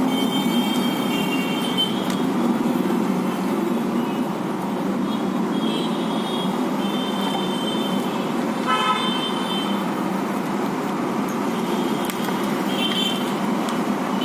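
Steady road-traffic rumble with vehicle horns tooting briefly several times.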